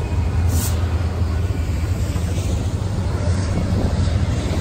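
A passing train, a loud steady rumbling noise, with a brief high hiss about half a second in.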